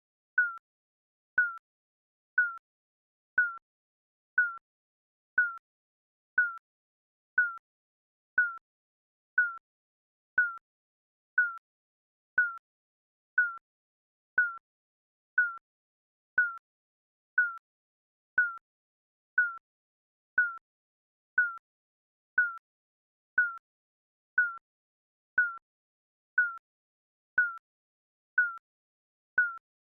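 Digital timer beep sounding once a second: a short, high single tone with a sharp start and quick fade, repeating evenly.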